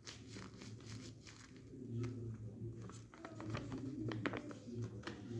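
Packaging being handled in an unboxing: crinkling and rustling with scattered clicks and taps, the sharpest click a little over four seconds in, over a steady low hum.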